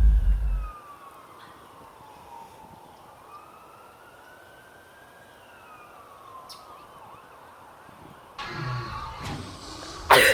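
Faint wailing alarm siren, its pitch slowly rising and falling, after a deep rumble that cuts off within the first second. A louder noise comes in near the end.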